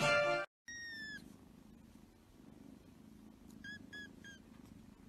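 Young kitten mewing: one high-pitched mew that falls slightly in pitch, then three short mews in quick succession about three and a half seconds in.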